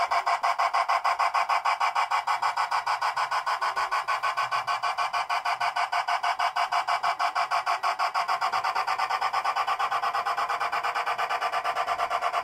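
Steam chuff from a G scale model steam locomotive's sound system: quick, even chuffs at about six a second, a little softer near the end.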